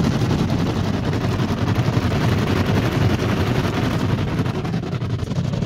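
Rotating brushes of an automatic car wash slapping against the car's windshield and body, heard from inside the car: a loud, rapid, continuous flapping.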